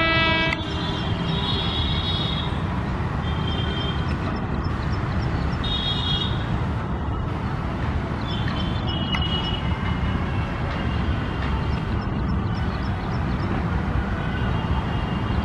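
Passenger train hauled by a WAP-5 electric locomotive rolling over a steel truss bridge: a steady rumble of wheels on the rails and girders, with short high squeals now and then. The locomotive's horn cuts off about half a second in.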